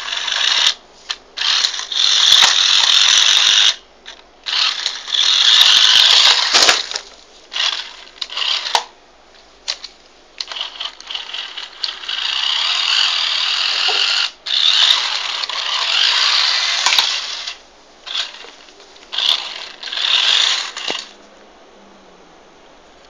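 Mini 4WD RC car's small electric motor and gears whirring in bursts of throttle, some a few seconds long and some short blips, with quiet gaps between; it falls quiet near the end.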